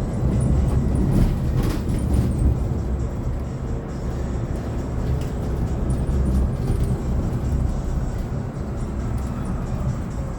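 Inside a moving 2024 Hyundai Elec City 2 electric bus: steady low road and tyre rumble with the electric drive motor's faint whine, which rises in pitch near the end as the bus picks up speed.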